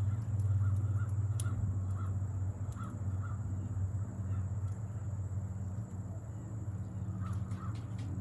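Lockheed KC-130J Super Hercules droning overhead on its four turboprop engines, a steady low propeller hum that slowly fades as the aircraft moves away.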